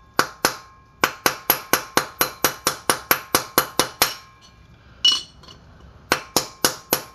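Small hammer tapping on an old bearing race to drive a new wheel-bearing race into a Toyota Tacoma front hub. The taps are quick, sharp and metallic, with a ringing tone, in runs of about four or five a second. There is a pause with one louder clink about five seconds in before the tapping resumes.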